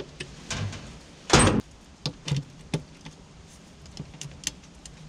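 A ratchet wrench being worked on a drain plug: irregular metallic clicks and knocks, with one louder clunk about a second and a half in.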